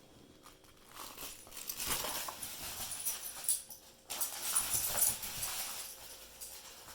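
A reindeer making its funny noise: two long, breathy, hissing calls, the first about three seconds long and the second about two.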